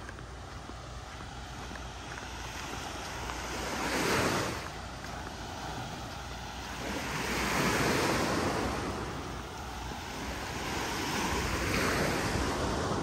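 Small waves breaking and washing up a sandy beach, swelling three times about four seconds apart. Wind rumbles on the microphone underneath.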